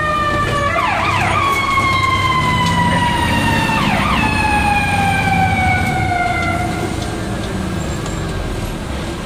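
Fire engine siren heard from inside the cab. It sweeps up quickly twice, each time then sliding slowly down in pitch, and fades out about seven seconds in. The truck's diesel engine rumble and road noise run underneath.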